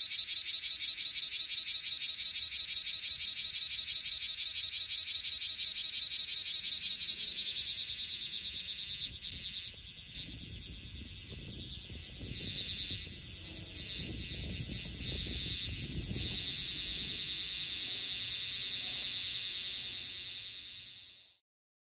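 Bear cicada (kumazemi, Cryptotympana facialis) singing at close range: a loud, high, evenly pulsing call of a few pulses a second. It drops in strength about a third of the way through, carries on more softly, then fades out and stops near the end.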